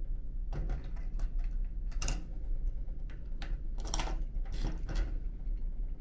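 Coin-return locker lock being worked: a 100-yen coin and a key click and rattle against the metal lock plate as the coin goes in and the key turns. There is a string of sharp clicks from about half a second in to about five seconds in, over a steady low hum.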